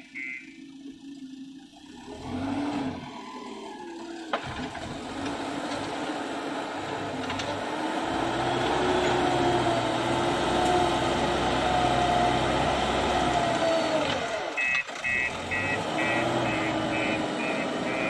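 JCB backhoe loader's diesel engine running and working harder through the middle as the front bucket pushes soil. Its reversing alarm beeps about twice a second at the very start and again from about two-thirds of the way through.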